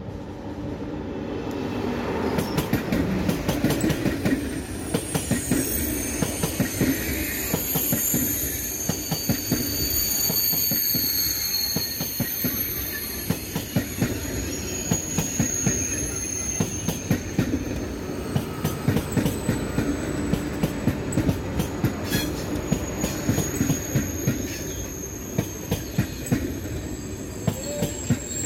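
TGV Atlantique high-speed electric train, two coupled sets, passing close by: a rumble that builds over the first few seconds, with rapid irregular clicking of the wheels on the track. A high-pitched squeal comes in about five seconds in and again near the end.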